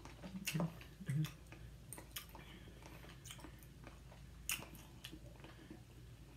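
A person chewing sticky, chewy peanut-butter taffy candy: faint wet mouth clicks and smacks, scattered irregularly, with two short closed-mouth hums about half a second and a second in.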